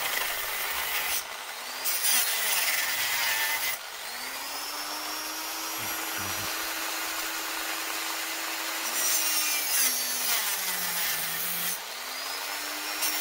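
Small power tool's rotating saw blade cutting into a stainless steel hose clamp. Its motor hum sags in pitch each time the blade bites, with several spells of harsh grinding; the hum drops furthest near the end before the motor spins back up.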